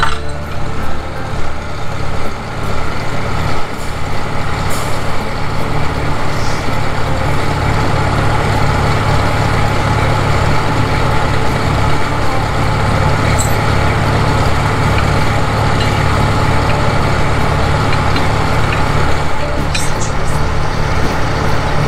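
1953 Farmall tractor's four-cylinder engine idling steadily, its low, even firing beat running unbroken.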